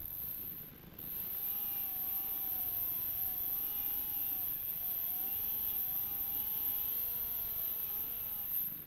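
Stihl MS 201 TC top-handle chainsaw running at high revs and cutting through the pine trunk, starting about a second in, its pitch dipping and rising over and over as the chain bites into the wood. The engine drops off just before the end.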